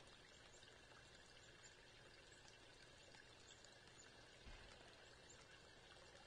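Near silence: faint outdoor ambience with scattered tiny high ticks and one soft low thump about four and a half seconds in.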